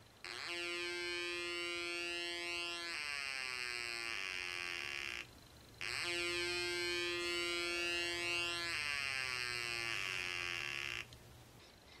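Funway 1 two-transistor electronic siren kit sounding through its small loudspeaker, twice. Each time it comes in suddenly on a steady pitch and holds for two to three seconds, then glides down and dies away over about two seconds. With a 4.7k resistor in place of the 47k, the capacitor charges very quickly, so the tone is at full pitch almost at once.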